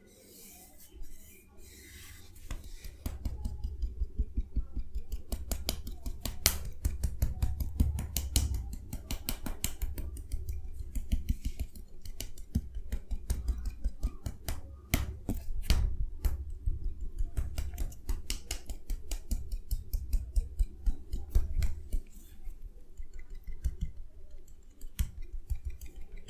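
Rapid percussive massage strokes tapping on the body, several a second, each a dull thud with a sharp click on top. They start about two seconds in and ease off to a few scattered taps near the end.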